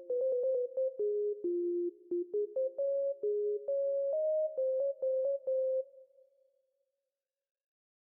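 A simple electronic keyboard tune: a run of clean, single sustained notes over a softer held note, each note starting with a slight click. It stops about six seconds in and leaves a short fading tail.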